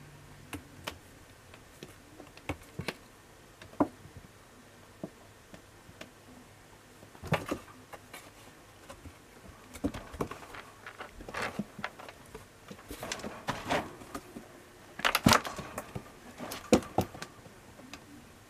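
Scattered small clicks, taps and rustles in and around a wire kitten pen, with denser bursts in the second half.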